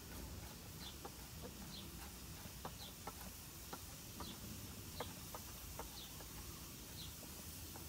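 Kitchen knife rough-chopping grilled tomato on a wooden cutting board: a run of light, unevenly spaced knocks, about two a second.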